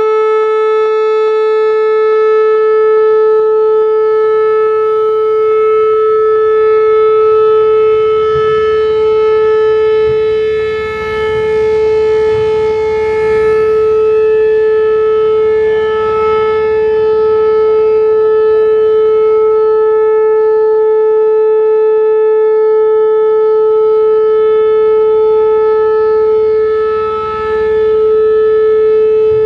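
Whelen WPS-4008 rotating electronic warning siren holding a steady, loud single-pitch Alert tone, its loudness dipping briefly twice as the rotating head turns away. The unit has broken drivers.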